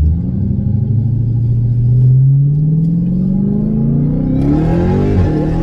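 Jeep Grand Cherokee Trackhawk's supercharged 6.2-litre V8 under hard acceleration, heard inside the cabin. The engine note climbs steadily in pitch.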